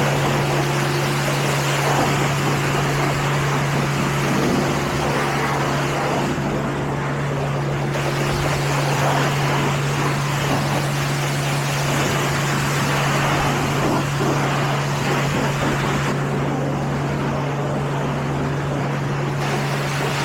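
Car wash water spray hissing against a car over a steady low machine hum; the spray noise eases in its highest range twice and comes back.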